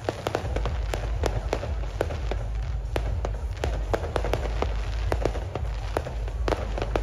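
Aerial fireworks bursting: a rapid, irregular run of sharp cracks and pops over a low rumble of booms.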